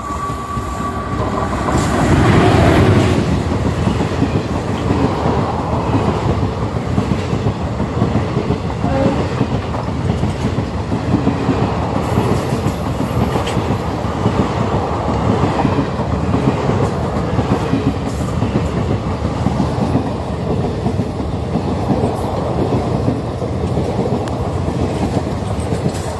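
Indian Railways express passenger train running through a station at speed without stopping: a continuous rumble of wheels on rail with a rhythmic clickety-clack of the coaches, loudest about two to three seconds in as the front of the train passes.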